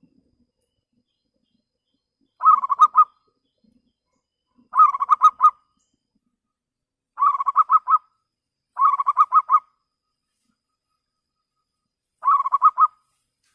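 Local zebra dove (perkutut) cooing: five short phrases of quick staccato notes, each under a second, a couple of seconds apart. It is a lure bird's call, meant to draw rival doves to answer.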